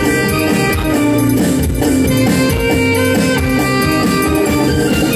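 Live band playing an instrumental with a saxophone leading the melody over drum kit, keyboards and electric guitar, amplified through the stage sound system.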